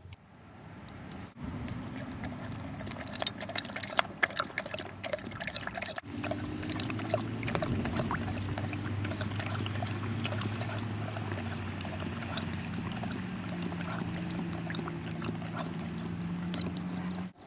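A Chinook dog lapping water from a small plastic bowl held in a hand: quick wet laps, several a second, over a steady low hum.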